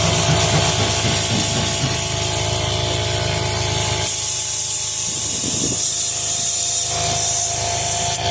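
Steady, loud hiss of air-powered tire-repair equipment over the hum of a running motor. The low hum drops away about four seconds in and comes back near the end.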